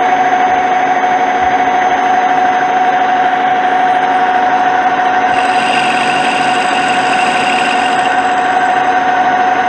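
Metal lathe running under power with a steady high whine from the spindle drive while a boring bar cuts inside the bore of the spinning metal part. About five seconds in, a brighter hiss joins the whine for a few seconds.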